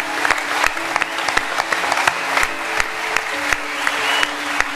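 An audience applauding, with many quick overlapping claps, over background music of slow held notes.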